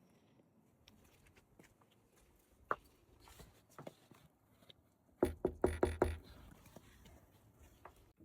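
Handling noise from a delivery parcel being picked up and turned over: scattered light taps and clicks, then a short burst of rustling about five seconds in.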